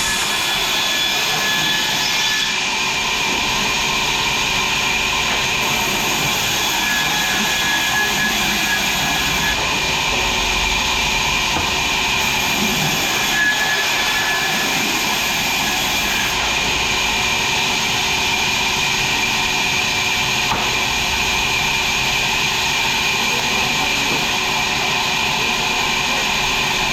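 Sawmill machinery running steadily: a constant, even mechanical noise with faint high tones that come and go.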